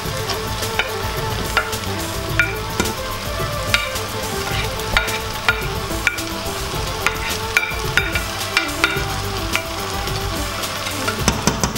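Wooden spoon scraping chopped onions off a ceramic plate into a hot pot, knocking on the plate's edge about once a second with a short ringing clink, over the steady sizzle of onions frying in the pot.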